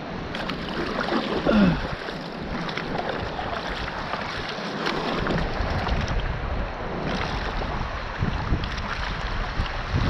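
Choppy sea water sloshing and splashing around a small bamboo raft, with wind buffeting the microphone, the rumble heavier in the second half.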